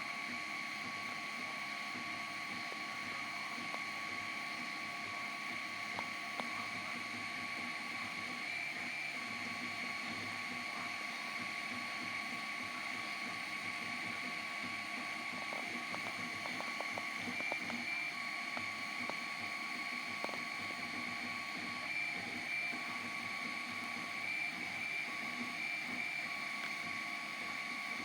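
3D printer printing: its stepper motors whine at a steady pitch that breaks and shifts now and then as the moves change, over a steady fan hiss.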